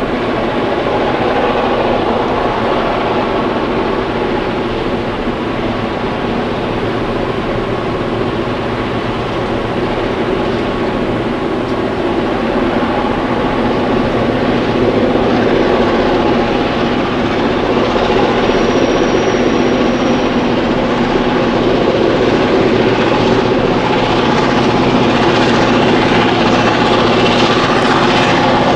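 Several Clyde/EMD diesel-electric locomotives heading a grain train, their engines running with a steady many-toned drone that grows louder as the train approaches.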